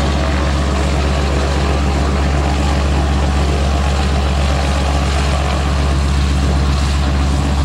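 DHC-2 Beaver floatplane's Pratt & Whitney R-985 radial engine and propeller running steadily at low taxi power as the plane taxis on its floats, a deep even drone.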